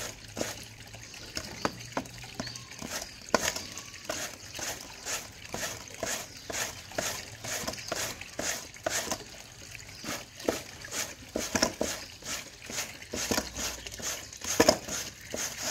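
A peeled cassava root being grated by hand on a punched-metal sheet grater: rhythmic wet scraping strokes, about two a second, as the root is rubbed up and down over the perforations.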